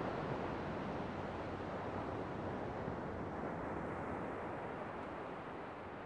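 Sea waves washing onto a beach, a steady rush of surf that slowly fades out near the end.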